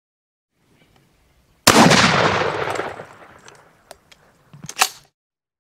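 A single 12-gauge shotgun shot with 00 buckshot: one sharp blast whose echo dies away over about a second and a half. A short clatter of clicks follows near the end.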